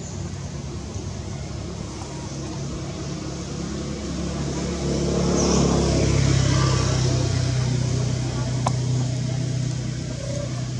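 A motor vehicle driving past: a low engine hum that swells about halfway through and eases off near the end.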